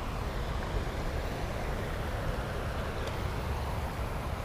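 Steady rumbling outdoor background noise, with a low rumble and a hiss.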